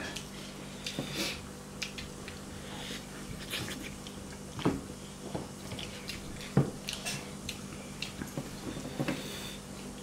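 A person eating with his fingers: wet chewing and lip-smacking with scattered small clicks, two sharper smacks standing out about halfway and two-thirds of the way in, over a steady low hum.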